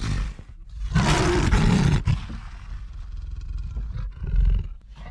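A wild animal's roar, played as a sound effect: loudest for about a second starting a second in, then trailing off, with a shorter second swell near the end.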